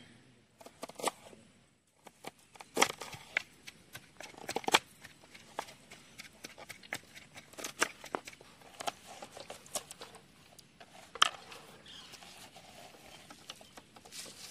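A hand squeezing a lemon and then mixing thick curd-and-spice chicken marinade in a large steel bowl: scattered, irregular wet squelches and clicks.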